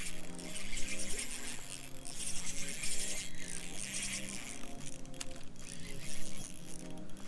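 Background music, a melodic tune moving in short even steps, with a bright hiss of noise over the first four or five seconds that then fades.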